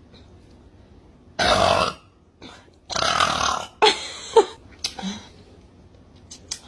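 A woman burping several times: a short burp about one and a half seconds in, then a longer burp about three seconds in that runs straight into a shorter one, followed by a few small faint sounds.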